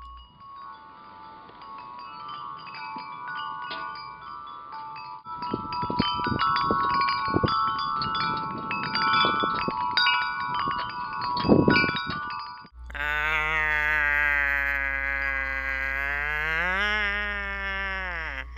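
A hanging metal wind chime rings with many overlapping tones as it is struck again and again, with wind rumbling on the microphone from about five seconds in. After a sudden cut, a cat gives one long, drawn-out meow whose pitch dips and rises again near the end.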